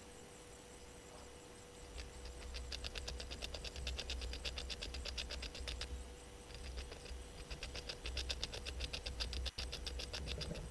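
A small animal's rapid ticking call, about nine even clicks a second, in two long bouts that start about two seconds in, over a steady low hum.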